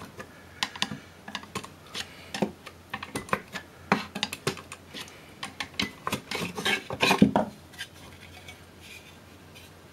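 A metal pick scraping and clicking against a plug-in circuit board and its edge connector as the board is pried loose and pulled from its slot. The clicks and scrapes come irregularly and are loudest about seven seconds in, then die down.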